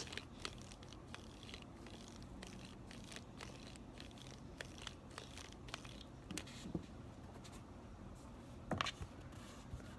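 Guoguan Yuexiao speed cube being turned by hand: a run of faint clicks and scratchy spring noise from the cube's internal springs, with a louder clack of turning layers near the end.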